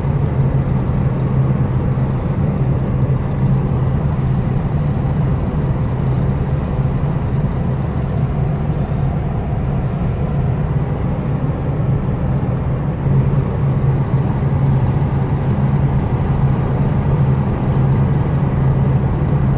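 Hyundai Accent driving at highway speed, heard from inside the cabin: a steady low grinding drone over road and tyre noise. The owner hears this grinding from behind the steering wheel when driving straight above 80 km/h.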